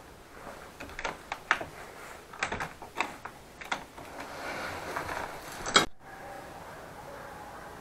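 Metal lever handle and latch of an old door being worked by hand: a run of sharp clicks and knocks over about five seconds, ending in one loud click. Just before six seconds it cuts to a steady low hiss.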